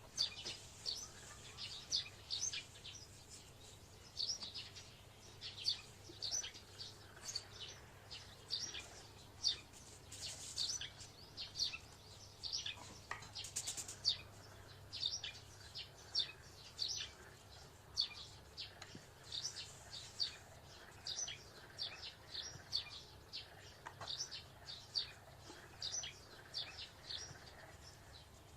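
Small birds chirping: quick, high, short chirps a few per second in an irregular run, over a faint steady low hum.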